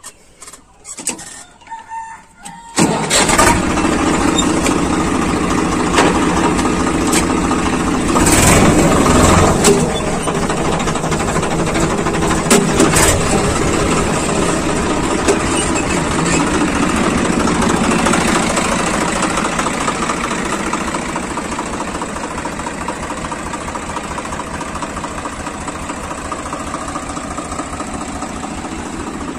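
Swaraj 855 FE tractor's three-cylinder diesel engine starting up about three seconds in, then running at a steady idle. It runs briefly louder around eight seconds in and slowly gets quieter over the last ten seconds.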